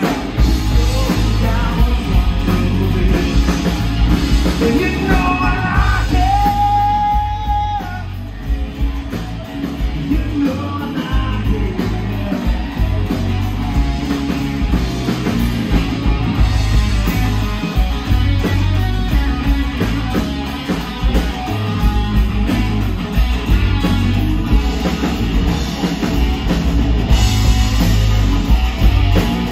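A live rock band playing at full volume: drum kit, bass, electric and acoustic guitars. About six seconds in a voice holds one long note over the band.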